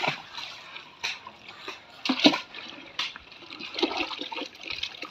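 Water splashing and sloshing in a metal pot of live fish as hands reach in and grab them, in irregular bursts with the loudest splash about two seconds in.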